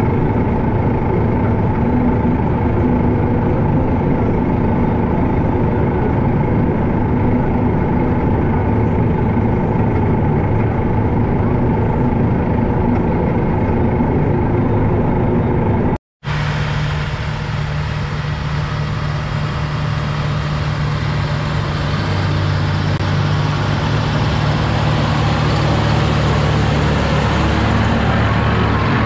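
Case IH Quadtrac 600 tractor's diesel engine running steadily under load while pulling a Väderstad TopDown cultivator through stubble. About halfway the sound cuts out for a moment, then the tractor is heard from beside it, its engine and tracks with a deeper tone and slowly growing louder.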